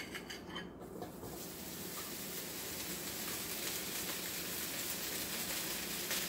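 Thin-sliced beef sizzling as it is scraped into a very hot wok to sear, the hiss building steadily after about a second. A few light clicks of the utensil against the glass bowl at the start.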